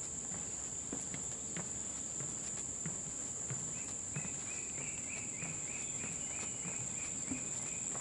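Rainforest insects keep up a steady high-pitched drone, over soft, irregular footsteps on the wooden boards of a canopy walkway. About halfway through, a repeated call of about three notes a second joins in for some four seconds.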